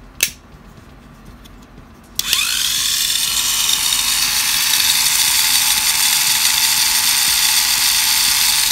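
Tamiya Mini 4WD AR chassis switched on after a click: the small electric motor spins up about two seconds in and runs with a steady high whine of motor and gears, the drivetrain being run in. It runs quietly for what it is, its gears and bushings greased.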